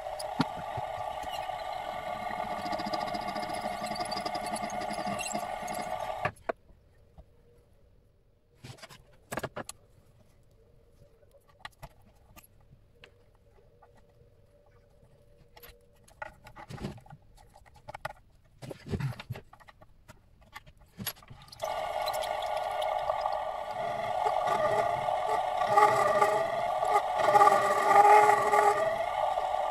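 Mini-lathe running with a steady whine, which stops about six seconds in. Several seconds of scattered clicks and knocks follow. The lathe starts up again near the end and runs louder, its pitch wavering.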